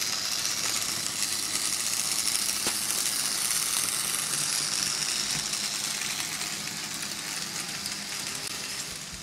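Märklin H0 model trains running on vintage pressed-steel M-track: a steady metallic rattle of wheels over the rails with a hiss of running gear, growing fainter over the last couple of seconds.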